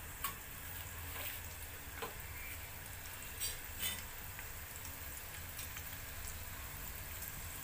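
Mustard seeds frying in hot oil in a steel pan: a faint steady sizzle with a few sharp pops scattered through it, about four or five in all, as individual seeds pop.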